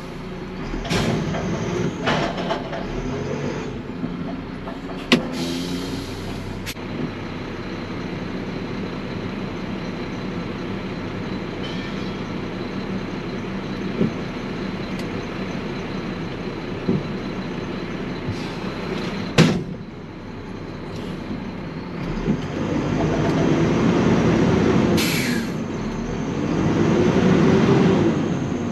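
Front-loading garbage truck's diesel engine running, heard from inside the cab, with a few clanks and short hisses of air along the way. Near the end the engine revs up and back down twice.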